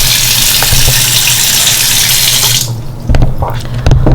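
Water running hard from a tap with a loud, steady hiss that cuts off sharply about two and a half seconds in, followed by a few short knocks.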